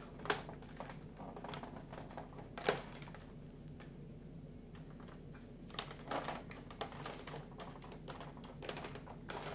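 3D puzzle model pieces being handled, pressed and slotted together: scattered light clicks and taps, sharpest about a quarter second in and just before three seconds, with a cluster around six seconds. A faint steady hum runs underneath.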